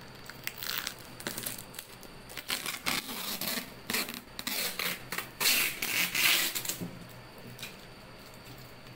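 Hands working at the clear plastic wrap and packing tape on a cardboard appliance box: irregular crinkling and scraping rustles, loudest a little past halfway, dying away about seven seconds in.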